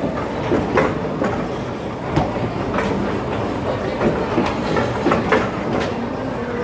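Clay roofing-tile press running: a steady mechanical rumble with sharp metal clanks, repeating unevenly about once a second.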